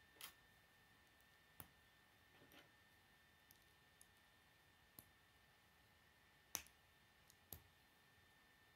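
K'nex plastic rods and connectors clicking as they are handled and snapped together by hand: a string of irregular, sharp clicks, the loudest about six and a half seconds in.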